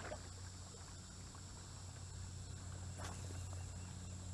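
Quiet riverside ambience: a steady high-pitched insect drone over a low steady hum, with one faint splash of a kayak paddle stroke about three seconds in.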